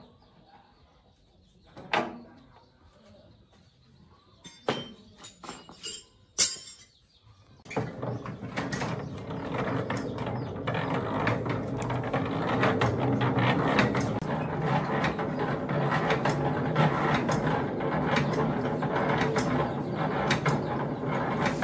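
A few sharp knocks of handled metal, then, about eight seconds in, a steady machine noise with a dense rapid clatter starts suddenly and keeps running.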